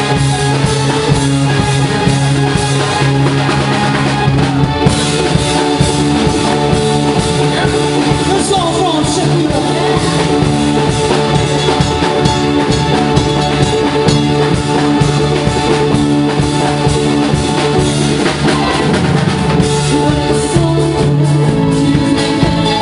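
Live band playing loud dance music, with a drum kit keeping the beat under keyboard and other instruments.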